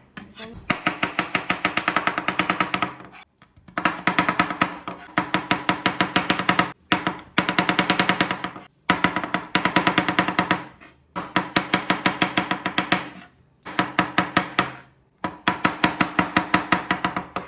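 Knife rapidly chopping garlic on a chopping board: quick, even runs of several strokes a second, in bursts of a second or two with short pauses between.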